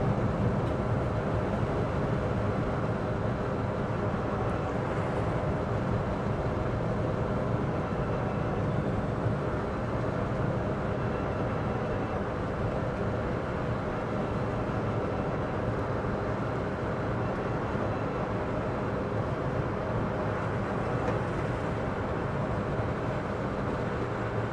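Steady in-cabin driving noise of a Citroen Ami electric car on a wet road: a constant rush of tyre and road noise with a few faint steady tones in it.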